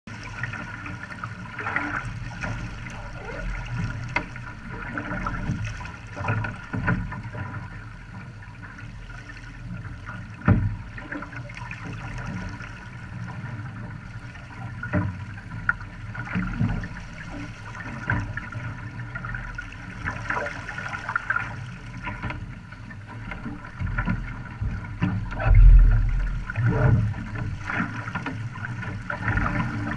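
Water rushing and slapping against the hull of an OK Dinghy sailing upwind: a continuous wash broken by frequent short splashes, with one heavy low thump near the end.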